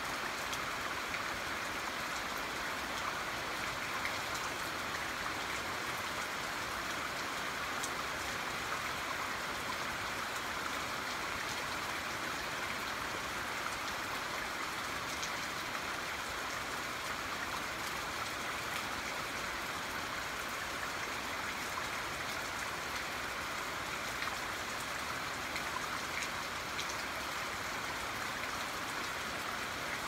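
Steady rain falling, an even hiss with scattered individual drops ticking through it.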